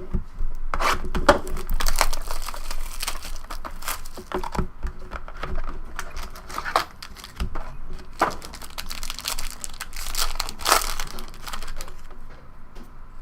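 Packaging being torn open and crinkled by hand, with repeated tearing and crackling of wrapping as a new box of trading cards is opened.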